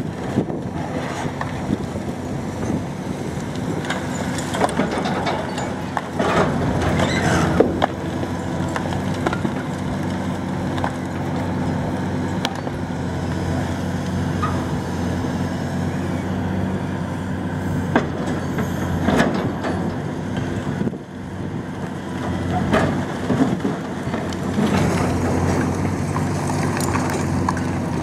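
Liebherr R954C high-reach demolition excavator's diesel engine running steadily, overlaid by spells of cracking and crunching as its demolition jaws bite through concrete and rubble falls from the upper floors.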